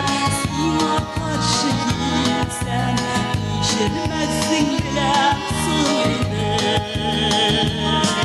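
A woman singing a Tatar pop song live into a microphone, over keyboard backing with a steady bass beat about twice a second.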